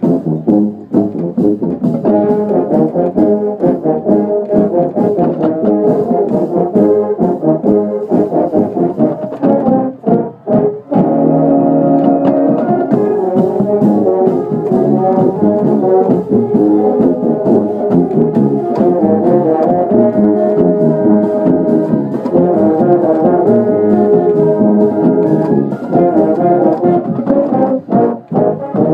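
High school marching band playing, led by its brass section with held chords, loud and close. The playing breaks off briefly about ten seconds in and again near the end.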